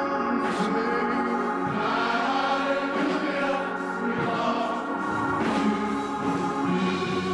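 Gospel choir singing, with a man leading on a handheld microphone.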